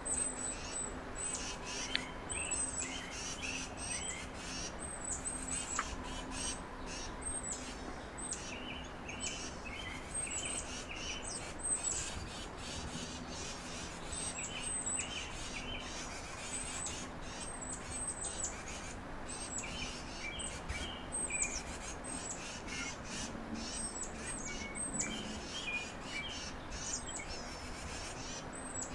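Several songbirds chirping: many short, very high, thin notes repeat over and over, with lower chirps mixed in.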